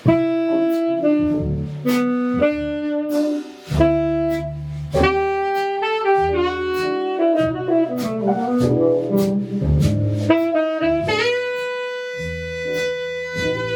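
Saxophone playing a slow jazz melody over a rhythm section, with bass notes and cymbal strokes beneath it; near the end the saxophone holds one long note.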